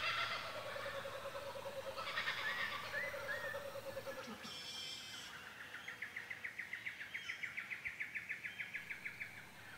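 Laughing kookaburra calling: a fast, even run of repeated notes from about six seconds in. Before it come other bird calls, a long falling tone and a few short chirps.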